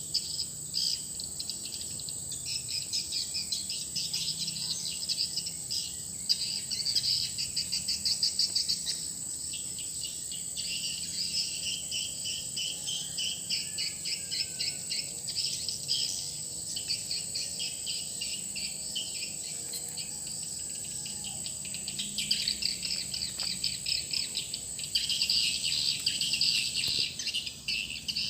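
Edible-nest swiftlet calling sound, the lure call of a swiftlet house: rapid high-pitched chirping trills that come in bouts, over a steady high whine.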